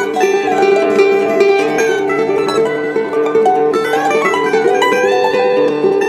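Background music: a quick picked melody on plucked string instruments over a steady accompaniment.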